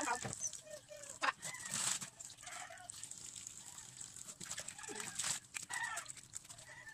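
Water from a kitchen tap running into a plastic basin of Napa cabbage, with chickens clucking in the background in short scattered calls.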